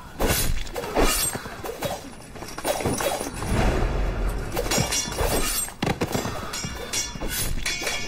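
Soundtrack music with many irregular sharp clicks and crackles over it.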